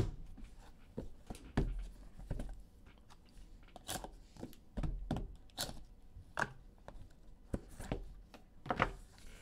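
Trading cards and a cardboard sorting box being handled on a tabletop: an uneven string of taps, knocks and light rustles with no steady rhythm.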